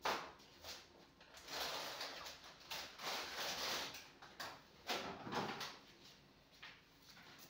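Groceries being handled and put away in a kitchen: a sharp knock, then two stretches of rustling and a few more knocks about five seconds in.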